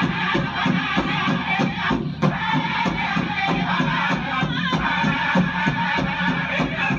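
Powwow drum and singers performing a chicken dance song: chanted group singing over a steady drumbeat.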